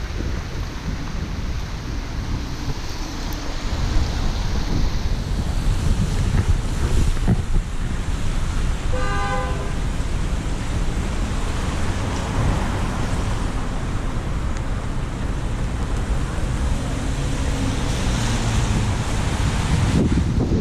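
Steady low rumble of a car driving through city traffic in the rain, with wind noise on the microphone. A car horn honks once, briefly, about nine seconds in.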